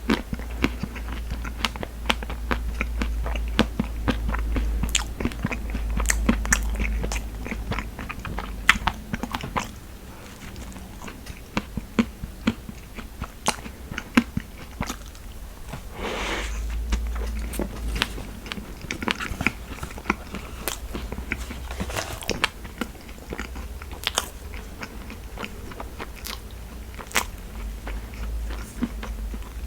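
A person chewing and biting food close to the microphone, with many sharp, crisp clicks of the mouth and teeth.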